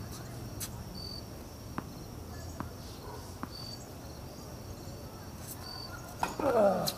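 Tennis ball knocking sharply off racket and court three times in a rally, over crickets chirping in short high bursts. Near the end a player's voice calls out loudly.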